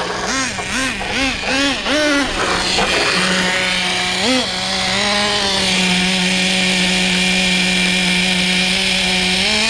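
Traxxas Pro 15 nitro engine in an RC truck, breathing through a stinger pipe, blipped up and down about twice a second, then after one more blip settling into a steady idle that sits a little high.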